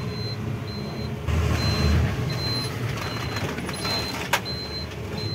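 Engine running low, heard from inside a vehicle's cab, with a short high electronic beep repeating about three times every two seconds. There is one sharp click about four seconds in.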